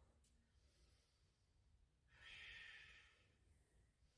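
Near silence, with one faint exhaled breath about two seconds in, lasting under a second.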